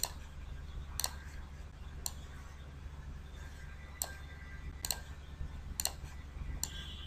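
Computer mouse button clicking, about eight sharp clicks roughly a second apart, a couple of them in quick pairs, over a low steady hum.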